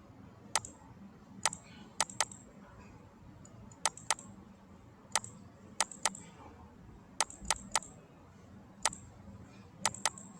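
Computer mouse clicking: about fifteen sharp clicks at uneven intervals, several in quick pairs like double-clicks, over a faint steady low hum.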